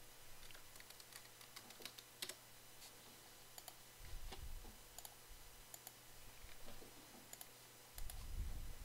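Computer keyboard typing in quick clicks for the first few seconds, then scattered mouse clicks. Two dull low thumps come about four and eight seconds in.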